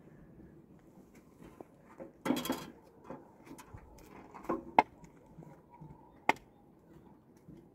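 Hand digging in stony soil with a hoe and shovel: a short gritty scrape of the blade through gravelly earth about two seconds in, then a few sharp clicks of metal on stone.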